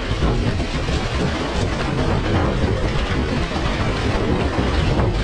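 Wind buffeting an action-camera microphone as a low, steady rumble, over the wash of surf.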